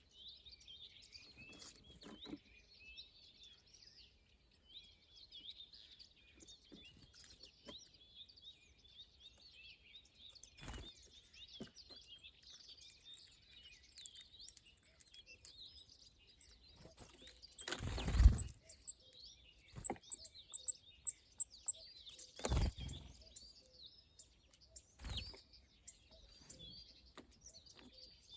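Many small birds chirping and twittering steadily. A few short thumps break in, the loudest about two thirds of the way through.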